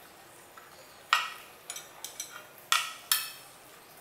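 Metal parts clinking and clanking as a tubular crash guard is fitted to a motorcycle engine: three sharp clinks with a short ring, and lighter ticks between them.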